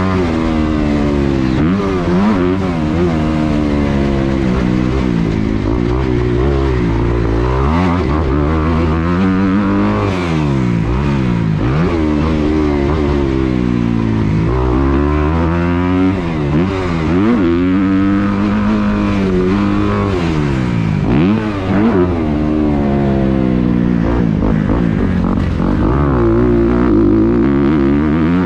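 Dirt bike engine ridden hard, revving up and falling off again and again: the pitch climbs through each gear, then drops sharply when the throttle is chopped.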